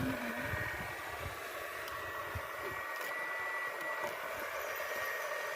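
A small electric motor running with a steady high whine over a hiss, with a few low knocks in the first second.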